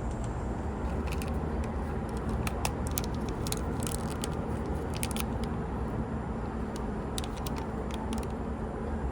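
Steady low rumble of vehicle traffic, with a run of small sharp clicks and light rattles, like small objects being handled, through the middle of the stretch.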